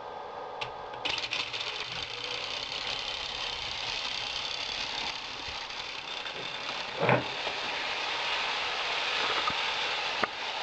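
Meccano model lawnmower running under its small 6-volt electric motor, a steady high whirr that starts about a second in, with the motor driving the back wheels through a rubber driving band. A few knocks come through it, the loudest about seven seconds in.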